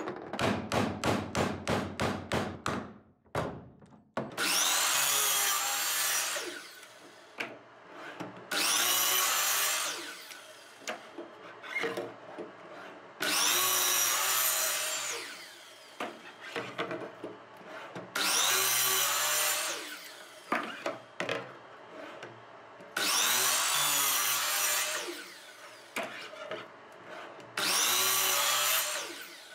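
A quick run of about a dozen hammer blows on a wooden slab, then a miter saw making six separate cuts of about two seconds each, spinning up and cutting through a dark laminated board to trim its corners off toward a circle.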